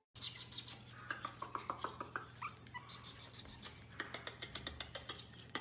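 A Pomeranian puppy gives a few short high whimpers over a quick, even run of small clicks, about six a second.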